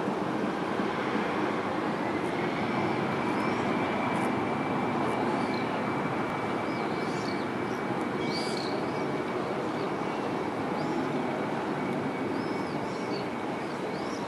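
Jet airliner's engines running at high power on the runway for takeoff: a steady, loud roar with a thin high whine that sets in about two seconds in. Small birds chirp faintly over it.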